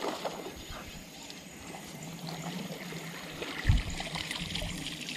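A hooked fish splashing and thrashing at the water's surface as it is reeled in beside the boat. There is one short dull thump a little past the middle.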